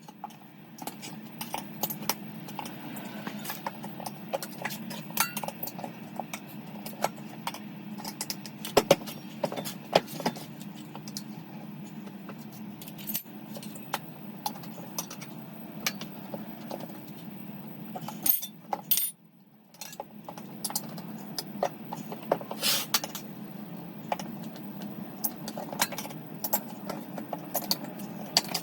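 Metal hand tools clinking and tapping in quick succession during a motocross tyre change, sped up, over a steady low hum, with a brief break about two-thirds through.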